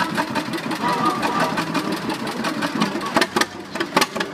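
Two-cylinder engine of a John Deere Model A tractor running as it drives slowly past, a steady run of exhaust pops with a few louder pops near the end.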